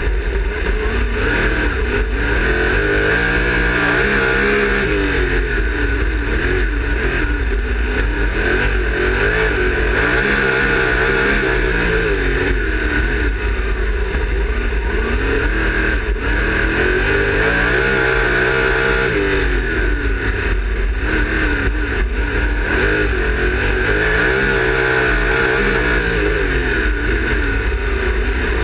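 360 sprint car's V8 engine racing on a dirt oval, heard from the cockpit. The engine note falls off into each turn and climbs again down each straight, about every four to five seconds.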